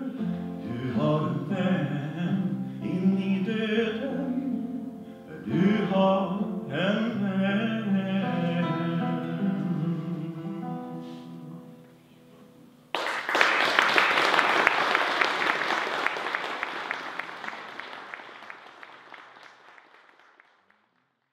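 A man singing and playing acoustic guitar through the closing bars of a song, which ends about twelve seconds in. A second later applause starts suddenly and dies away over about six seconds.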